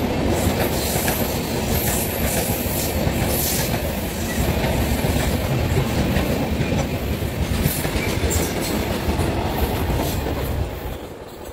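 Passenger train of LHB coaches running through a station at speed: steady rushing rumble with rapid clatter of wheels over rail joints. The noise falls away near the end as the last coach passes.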